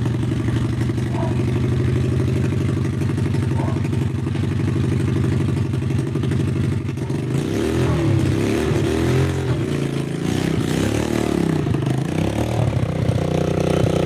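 Pit bike engine running at a steady speed, then revving up and down several times over a few seconds before settling back to a steady note.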